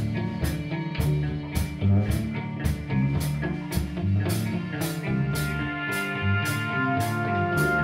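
Instrumental music: a moving bass line under a steady beat, with a sharp hit about twice a second. Held higher notes come in about five seconds in.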